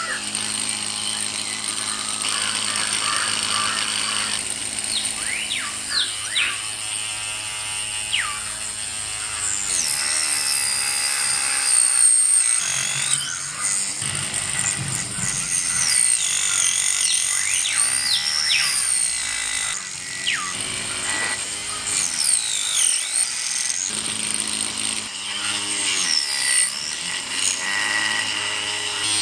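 Small electric motor spinning a miniature cutting disc, whirring steadily as green plant stalks are fed in and chopped into short pieces. A music track plays over it.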